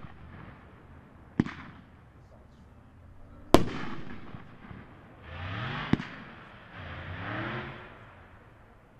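500-gram consumer firework cake firing shots: three loud sharp bangs about two seconds apart, each trailing off, with a rougher noisy spell around the third.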